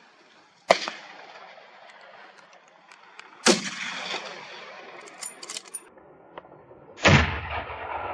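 Three gunshots about three seconds apart, each followed by a long echo that dies away slowly; the last is the fullest and deepest. They are shots fired at running wild boar.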